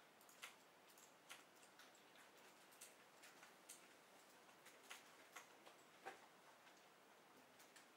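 Near silence with faint, irregular clicks and ticks, a few every second.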